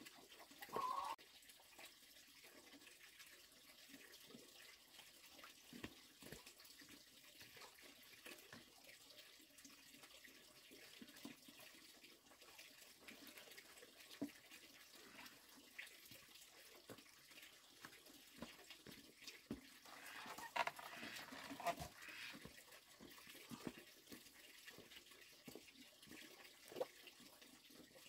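Near silence: a faint steady outdoor hiss with scattered light knocks and rustles, including a brief louder burst about a second in and a busier patch of rustling about two-thirds of the way through.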